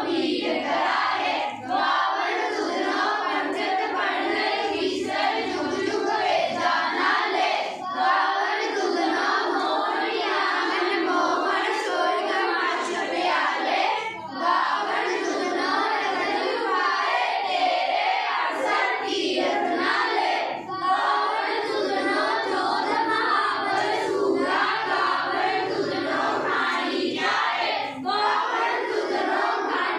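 A classroom of children singing a Sikh prayer together in unison. Short breaks come about every six and a half seconds between lines.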